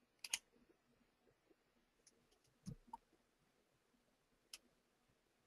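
Faint computer mouse clicks over near silence: a quick pair about a quarter second in, a few more around two to three seconds, and single clicks later on.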